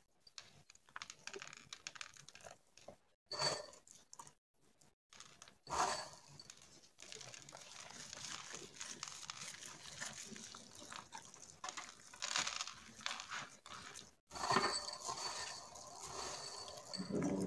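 Hands pressing coarse salt into raw beef rib steaks on a wooden cutting board: irregular small clicks, rubs and handling noises, broken by a few short gaps.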